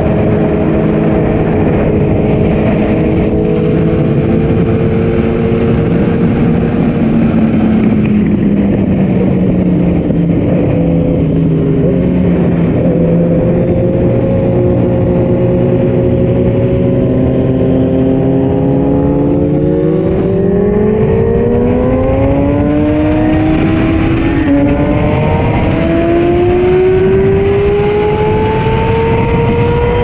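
Sport motorcycle engine under way at speed, with wind rushing over the microphone. The engine note sags slowly and holds. About two-thirds of the way in it climbs steadily through the revs, with a brief dip at an upshift.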